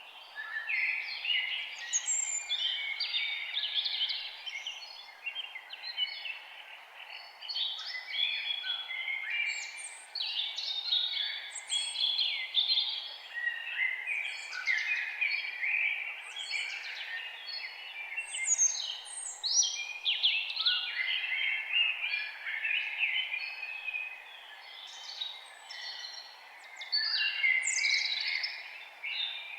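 Several songbirds singing at once in a forest, a dense overlapping chorus of quick chirps and sweeping whistled notes over a faint steady background hiss.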